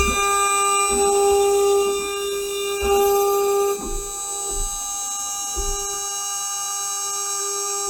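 CNC router spindle whining at a steady high speed while its bit cuts padauk wood. The whine swells louder several times as the cutter bites into the wood, with low thuds where the cut engages.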